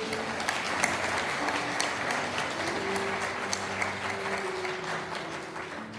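Congregation applauding, a steady patter of many hands clapping.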